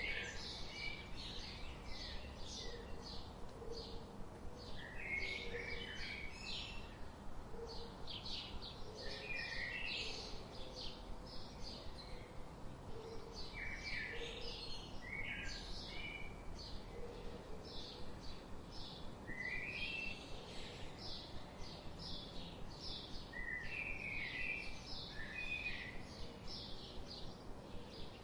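Budgerigars chirping and chattering, a dense run of short, quick calls with no break, over a steady background hiss.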